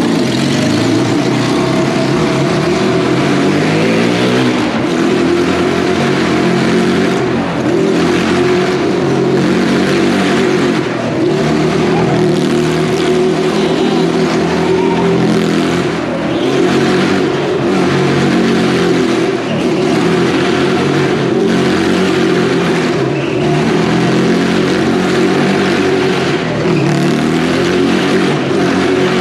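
The engine of a small open car running hard as it laps the wooden wall of a Wall of Death drum, its note rising and falling in a repeating rhythm with each circuit and echoing inside the drum.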